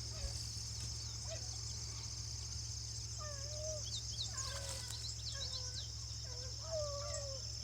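A lone hunting hound baying on a track, its drawn-out bawls repeating from about three seconds in, over a steady chorus of insects.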